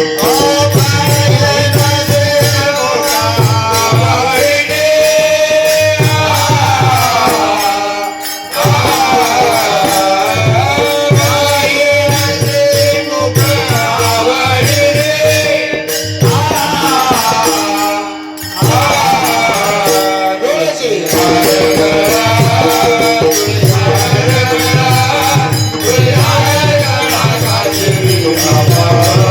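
A male voice sings a traditional Varkari devotional tune in long, bending held notes, to mridang (pakhawaj) drumming and jingling hand cymbals keeping time. The music drops off briefly twice, about 8 and 18 seconds in.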